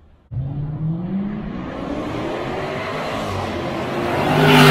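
Range Rover SVAutobiography with a Fi Exhaust valvetronic cat-back exhaust accelerating toward the listener; the exhaust note rises in pitch and grows louder, loudest near the end. The sound cuts in abruptly just after the start.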